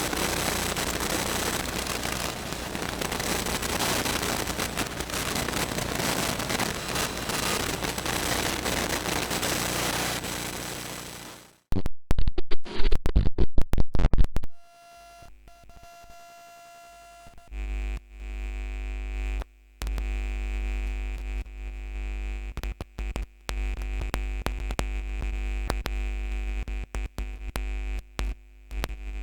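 Electronic interference sound effects in sequence: dense static hiss and crackle that cuts off about eleven seconds in, a few seconds of loud stuttering glitch bursts, then a low electrical hum and buzz with steady tones, broken up by choppy digital dropouts.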